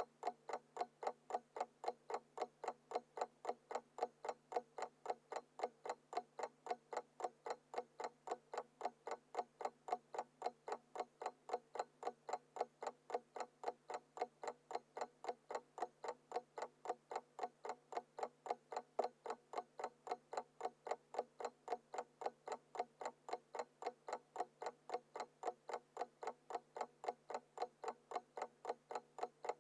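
Small mechanical alarm clock ticking, a quick, even tick of about four beats a second.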